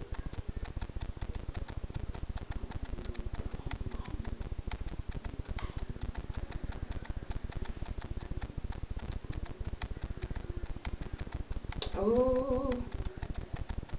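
Fast, even clicking crackle, many clicks a second, running without a break. Near the end a short hummed voice sound rises and falls.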